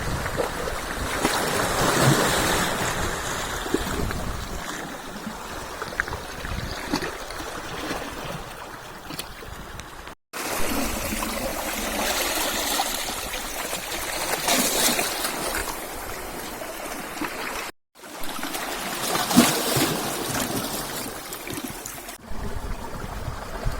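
Black Sea waves washing in and out at the shore, swelling and falling away, broken twice by a brief total dropout where clips are joined.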